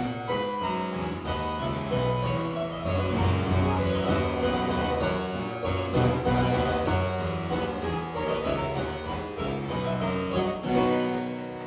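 Harpsichord playing alone, a continuous run of quick plucked notes in the bass and middle range, tailing off near the end.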